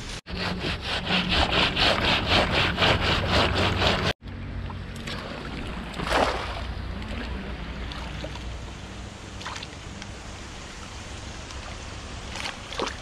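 Fast, even scraping strokes, about five a second, for some four seconds, cutting off abruptly. After that, a steady background hiss with a single louder swish about six seconds in.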